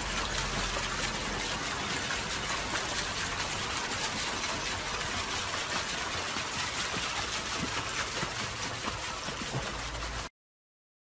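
Pool water splashing and sloshing as a small dog paddles through it, a steady wash of water sound that cuts off abruptly near the end.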